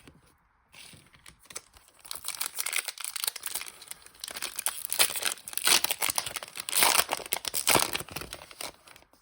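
Foil Pokémon booster pack wrapper crinkling and tearing as it is opened, a busy run of crackles that starts about a second in and grows louder through the middle.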